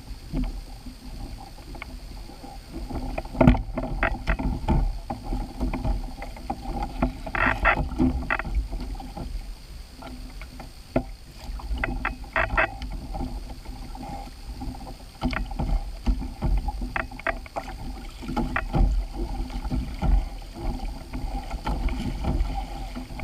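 Handling noises in a small fishing boat on the water: scattered knocks and short clattering rattles over a steady low rumble.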